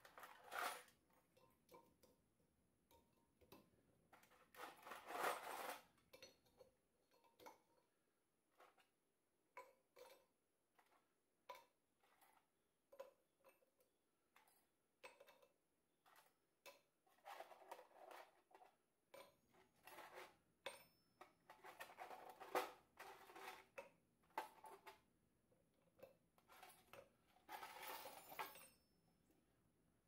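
Bronze cutoff pieces clinking against each other and against a metal tray as they are picked out and dropped into a crucible. Scattered single clinks, with a few short rattling clusters.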